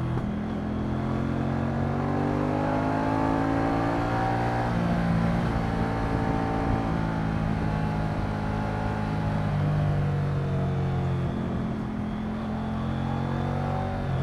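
Moto Guzzi V100 Mandello's transverse V-twin running under way, its pitch climbing as it accelerates, with breaks in the climb from gear changes about five and ten seconds in.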